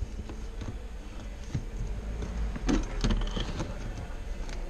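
Hands handling the plastic electrical connector and clips of a car's fuel pump module: a few small clicks and knocks, the loudest about three seconds in, over a low steady hum.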